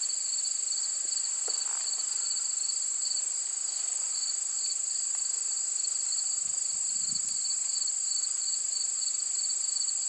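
A steady outdoor insect chorus, crickets or similar, sounding at two high pitches, the lower one with a fast pulsing trill. There are faint handling sounds about one and a half seconds in and again around seven seconds.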